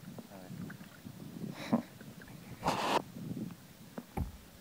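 Canoe paddle strokes splashing in the water right by the microphone: two short splashy whooshes, the second one louder, about halfway through. A sharp knock follows near the end.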